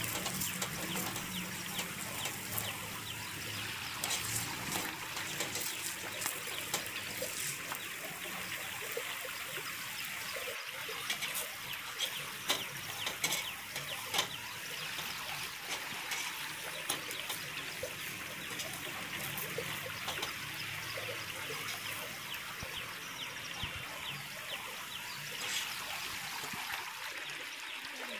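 Oil sizzling under a gobhi paratha on a hot iron tawa: a steady crackling hiss full of small pops, with a few louder pops about halfway through.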